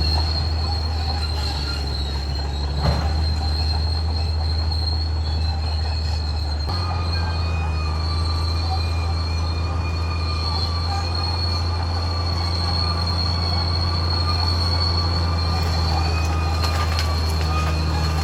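Caterpillar D6R XL bulldozer working, a steady diesel drone with a constant high-pitched whine and metallic squeal over it. The engine note shifts about seven seconds in, and there is a single sharp clank near three seconds.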